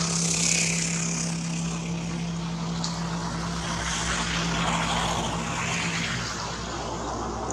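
A steady engine drone with a low, even hum that stops about six seconds in, over a steady high-pitched hiss.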